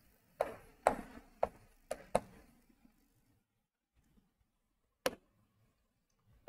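Chalk knocking and scratching against a chalkboard as numbers are written: a quick run of about five sharp taps in the first two and a half seconds, then one more tap about five seconds in.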